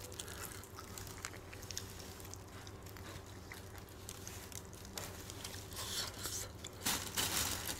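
Quiet eating sounds: biting and chewing on spicy marinated raw crab, small clicks and crunches over a faint steady hum, with a couple of brief louder hissy noises near the end.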